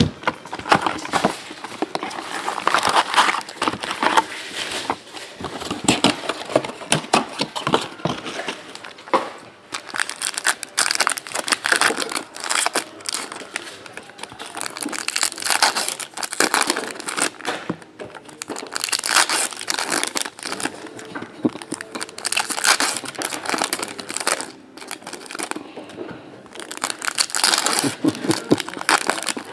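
Sealed trading-card box wrapping and foil card packs being torn open and crumpled by hand, crinkling in repeated bursts.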